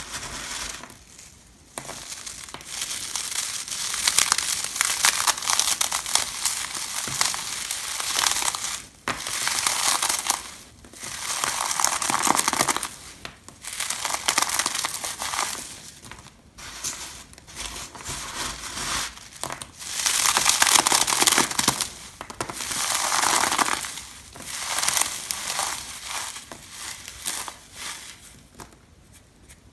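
Cheese puffs being crushed and crumbled in bare hands: repeated crunchy, crackling squeezes, each lasting one to a few seconds with short pauses between, growing quieter near the end as they break down to crumbs.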